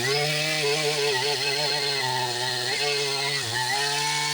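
Large Stihl two-stroke chainsaw running at high revs while cutting wood. Its pitch sags under load and recovers, once right at the start and again about three and a half seconds in.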